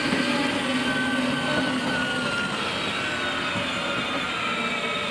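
12-volt electric drive motors and gearboxes of a Tonka Mighty Dump Truck ride-on running steadily, a continuous whirring with a faint whine, as the toy truck drives along.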